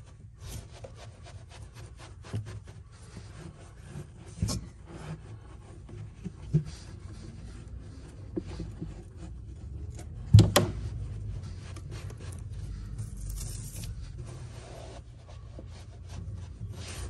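Hands pressing and rubbing a carpet panel into a vehicle's pedal footwell, the carpet scuffing as it is worked into the edges. A few knocks land among the rubbing: a small one about four seconds in and the loudest, a thump, about ten seconds in.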